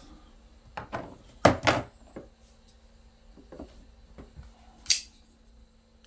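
Folding pocketknives being handled: a few scattered clicks and knocks, the loudest pair about a second and a half in, and a sharp click near the end.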